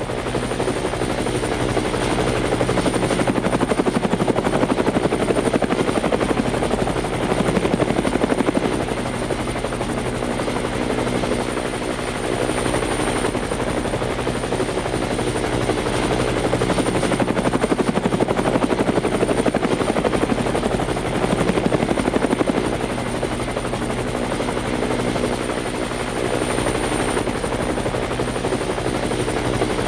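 Helicopter rotor and engine running steadily, a rapid continuous chop with a thin steady high whine over it. The level swells and eases gently every few seconds.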